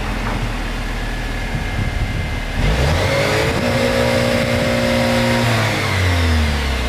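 Jeep Wrangler JL's 2.0-litre turbo four-cylinder engine being revved through its exhaust. The pitch climbs a little under three seconds in, holds for about two seconds, then drops back toward idle.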